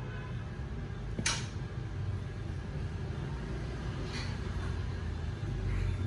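Faint handling of a metal Zippo lighter in the fingers as it is turned over, with a light click about a second in and a softer one a few seconds later, over a low steady hum.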